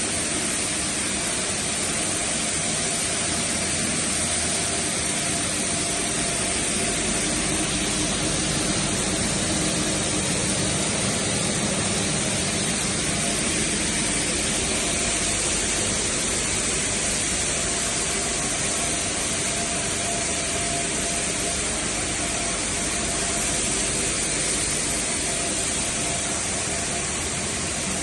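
Plastic granule-making (pelletizing) machine running steadily: a continuous mechanical drone with a high hiss and a few faint steady tones.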